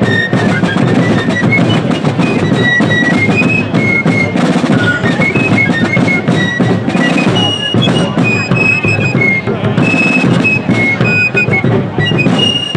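A fife and drum corps playing a tune: fifes carry a high melody over steady snare drumming, with bass drum underneath.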